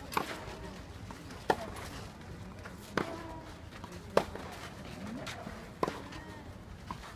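Tennis ball struck by rackets back and forth in a doubles rally on a clay court: six sharp pops about one and a half seconds apart.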